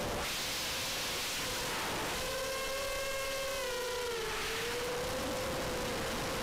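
ImmersionRC Vortex 250 Pro racing quadcopter's motors and propellers whining, heard from on board the quad. The pitch wavers with the throttle and dips briefly about four seconds in, over a rush of wind noise.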